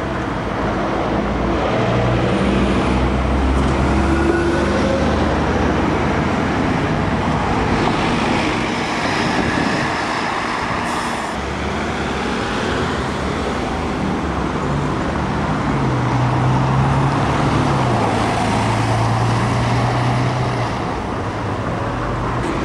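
Diesel buses driving past in road traffic, a double-decker and then a Mercedes-Benz single-decker, their engines humming and changing pitch as they pull through, over a steady noise of tyres and traffic.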